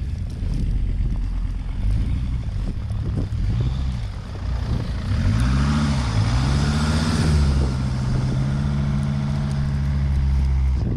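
A motor vehicle's engine revving up and down several times, then holding a steady pitch, with a rushing hiss of tyre or road noise swelling in the middle.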